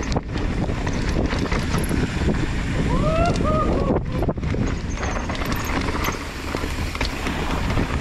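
Mountain bike descending a dirt trail, heard from a rider-mounted camera: heavy wind buffeting the microphone over the rattle and clatter of the bike and tyres on the ground. A short pitched squeal rises and falls twice about three seconds in.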